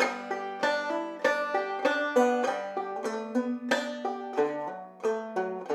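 Banjo played clawhammer style: a quick run of plucked melody notes, about three or four a second, over a drone string that keeps ringing. It is an old-time fiddle tune played at an even, moderate pace.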